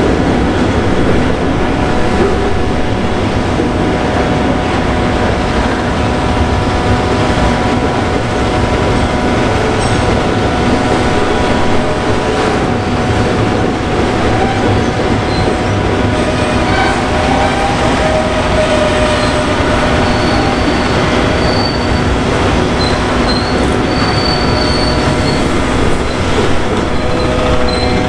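Freight train wagons rolling past continuously, with steady high-pitched wheel squeal over the rumble of the wheels on the track.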